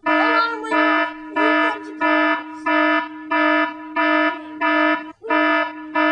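Electronic alarm beeping about twice a second over a steady buzzing tone, with wavering tones layered over it. The sound drops out briefly at the start and again about five seconds in.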